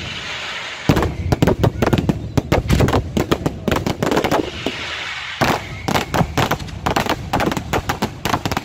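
Fireworks display: aerial shells bursting in a rapid, irregular barrage of bangs, with stretches of hissing crackle near the start and around the middle.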